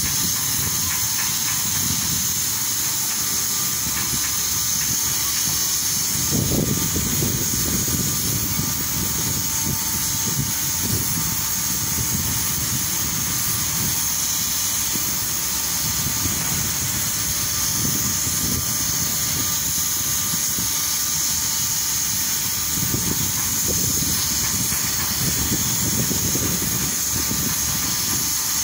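Steady hiss of wind and small waves washing on the shore, with low gusts of wind buffeting the microphone about six seconds in and again near the end.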